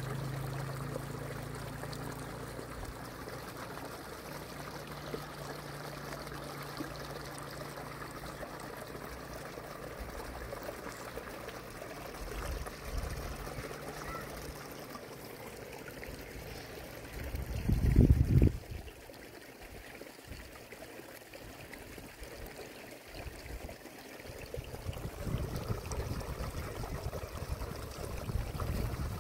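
Running water trickling steadily, with a faint low hum in the first half. A short low rumble a little past halfway is the loudest moment.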